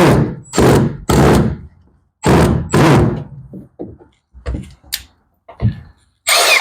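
Plastic mud flap and fender liner being knocked and pushed about by hand: five loud thunks in the first three seconds, then softer knocks, then one more loud thunk near the end.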